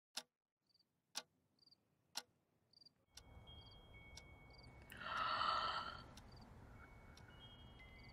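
A clock ticking about once a second: three sharp, clear ticks first, then fainter ticks under a steady low hiss. About five seconds in, a breathy, sigh-like sound swells for about a second and is the loudest thing heard.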